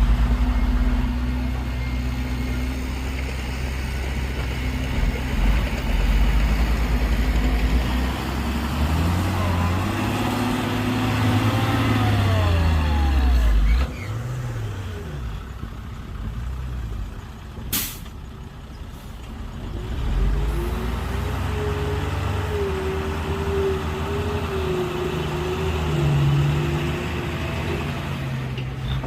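Heavy diesel earthmoving machine running, its engine note rising and falling repeatedly through the first half and dropping off suddenly about halfway. A single sharp click follows a few seconds later, then the engine runs steadily again with a high whine above it.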